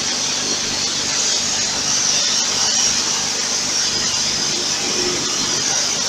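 High-pressure spray lance washing down a stainless-steel machine, a steady loud hiss of water jetting onto the metal.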